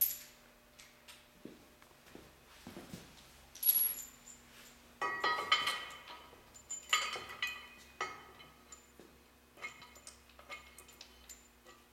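Steel bolts clinking and tapping against a steel truss tube and its mounting flange as they are fitted by hand: scattered short ringing metallic clinks, bunched in clusters about four, five, seven and ten seconds in.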